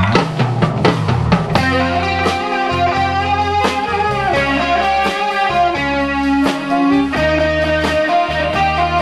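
Live band playing a song's instrumental introduction: electric guitar over bass and drum kit, with saxophones holding notes.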